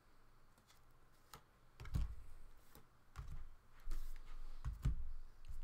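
Trading cards being handled on a table: light clicks and flicks as the cards are sorted through, with soft low knocks about two seconds in and several more in the second half.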